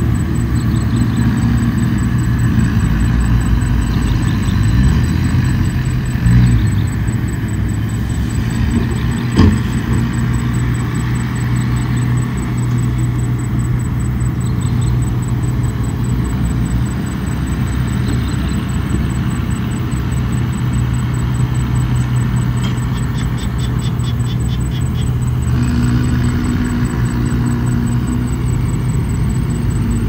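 Komatsu bulldozer's diesel engine running steadily with a low rumble, with a single sharp knock about nine seconds in and a brief run of quick ticks near the end.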